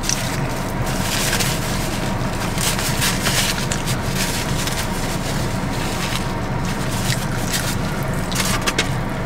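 Close-miked chewing of a mouthful of food, with scattered short crunchy crackles, over a steady low hum.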